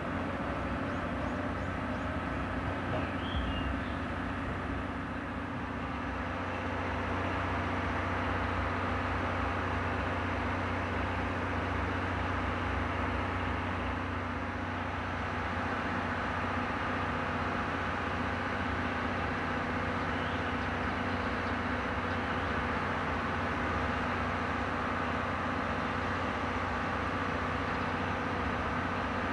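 Diesel train engine running with a steady, even drone.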